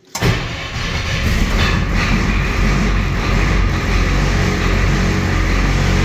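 International truck's 7.3 IDI V8 diesel starting at once and settling into a steady run, its fuel system freshly primed after losing prime.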